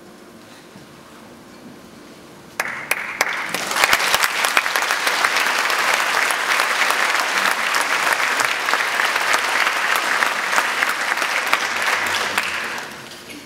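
Audience applauding: clapping breaks out about two and a half seconds in, swells within a second to a steady ovation, and dies away near the end. Before it there is only a faint murmur.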